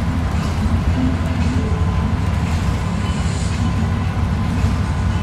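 Bus engine and road noise heard from inside the passenger cabin: a steady low rumble while cruising on a motorway.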